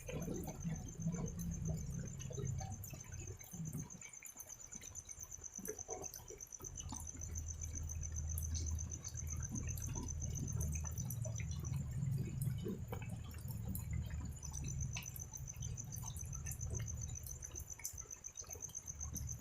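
Light night drizzle dripping in scattered clicks over a low rumble, with a cricket trilling steadily in a high pulsed tone that breaks off briefly twice.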